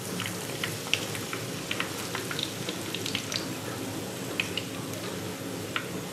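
Oil sizzling in a frying pan around breaded turkey breast pieces that are shallow-frying, a steady hiss with scattered crackles and pops.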